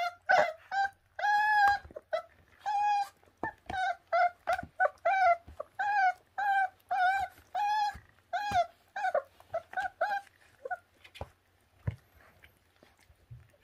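A young puppy, about four weeks old, whining in a long string of short, high-pitched cries, about two or three a second, which stop about ten seconds in. A few faint clicks follow.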